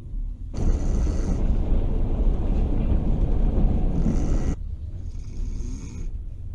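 A Russian sleeper train running, heard from inside the compartment: a loud rumbling rush that cuts in about half a second in and stops abruptly about four seconds later, with quieter rumble either side.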